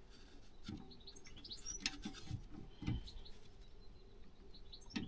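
Faint bird chirps, with a few soft low knocks partway through.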